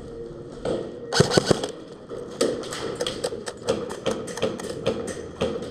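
Airsoft guns firing: a string of sharp, irregular shots, several a second, starting about a second in.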